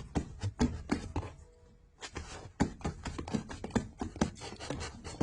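Irregular quick taps and light knocks, several a second, in a small room.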